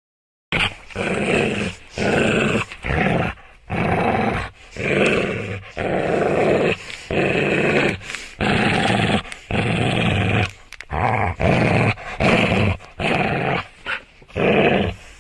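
A dog growling in more than a dozen short, rough bursts, one after another, starting about half a second in.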